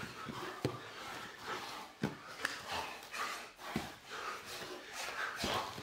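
Two men breathing hard as they grapple on a gym mat, with a few sharp slaps and thuds of bodies and hands against each other and the mat.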